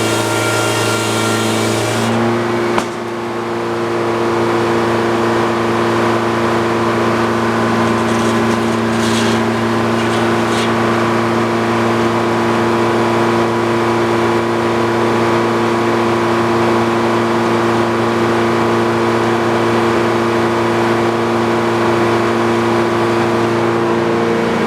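Engine-driven old Frick circular sawmill running at a steady note; the hiss of the blade in the cut stops about two seconds in, and the engine and saw run on steadily after that.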